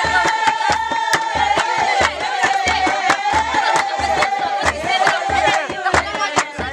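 A group chanting and singing, led by a high sustained voice, over a large hand drum beaten steadily at about two beats a second. Hand claps run throughout.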